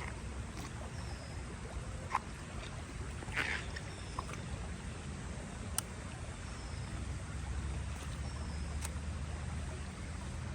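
Outdoor nature ambience: a steady low rumble with a few scattered clicks and faint short high chirps every couple of seconds.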